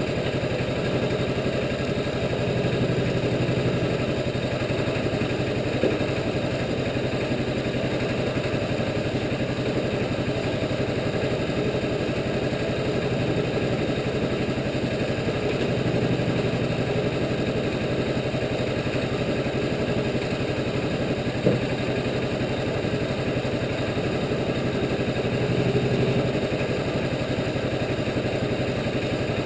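Engine of a Wood-Mizer LT15 portable bandsaw mill running steadily without cutting, swelling slightly a few times. A couple of brief knocks stand out.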